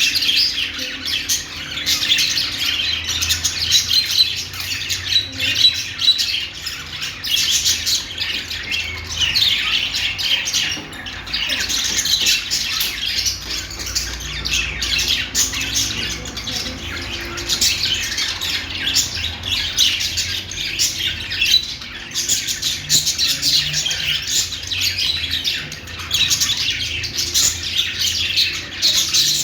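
Several pet budgerigars warbling and chattering without pause, a dense stream of quick, high chirps and squawks.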